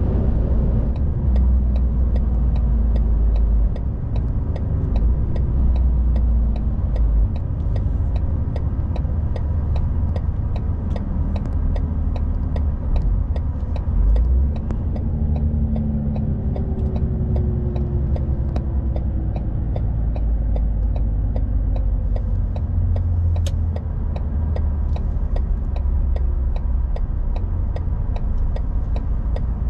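Articulated lorry cruising steadily at about 80 km/h on the motorway, heard from the cab: a steady low engine and road rumble, with a faint regular ticking about twice a second.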